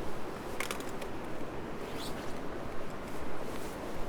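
Steady rush of a freestone river's flowing water, with a few short rustles or crunches about half a second and two seconds in.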